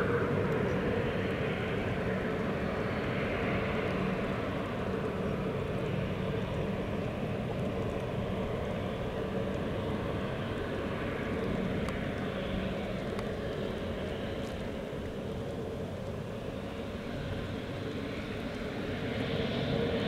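Embraer ERJ-195LR jet engines running steadily: a constant hum with a whine, growing a little louder near the end.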